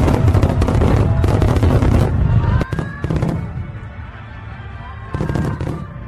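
Fireworks sound effect over background music: dense crackling and bangs, with a few short whistling glides, dying down after about three seconds.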